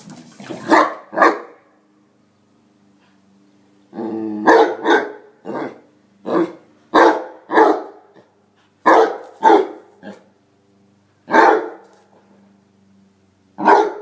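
A basset hound and a beagle play-fighting, with about a dozen sharp barks, mostly in quick pairs. There is a short growl about four seconds in, after a brief lull.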